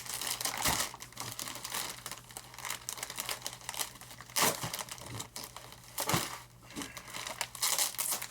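Plastic packing wrap being torn and crumpled off by hand, a dense crinkling with louder rips about four and a half and six seconds in.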